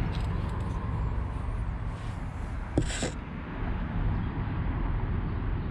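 Steady low outdoor rumble with no distinct source, with a single sharp click just before the middle and a brief hiss right after it.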